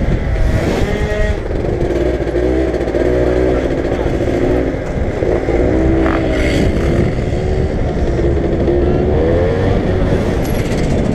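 Aprilia SR125 scooter engine running and revving, its pitch rising and falling several times, over a heavy low rumble.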